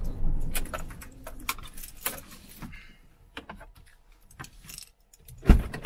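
Scattered light clicks and small metallic rattles, with one loud thump near the end.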